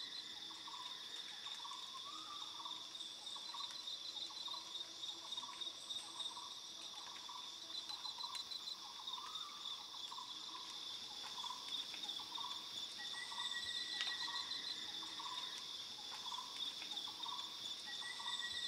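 Tropical rainforest insect chorus: steady high-pitched buzzing and trilling of crickets and cicadas, with short lower-pitched calls from another animal repeating a little more than once a second.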